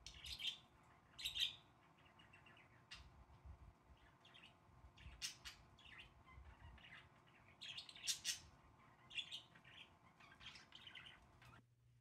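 Budgerigars chirping in short, scattered calls, with the loudest chirps about a second in and around eight seconds in.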